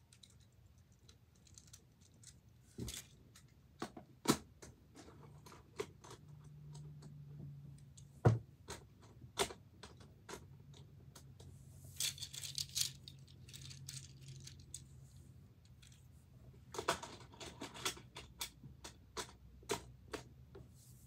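Fidget toys being handled, sorted and set down: scattered clicks, taps and knocks with a few sharper knocks, and quick runs of clicking and rattling about twelve seconds in and again near the end. A faint low hum sits underneath.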